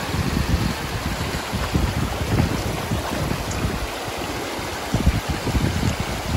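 River water rushing steadily, with wind gusting on the microphone in low, uneven rumbles.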